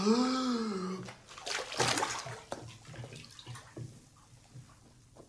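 Bath water splashing and bubbling as a person ducks his head under in a filled bathtub, fading away over a few seconds. It opens with a short voiced sound that rises and falls in pitch, made just before going under.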